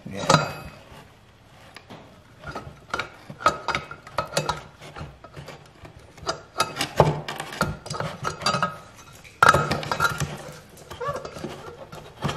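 Aluminium cylinder of a small Honda four-stroke engine being rocked and pushed down over the piston and rings by hand, without a ring compressor. Irregular metal clinks and knocks, the loudest just after the start and about nine and a half seconds in.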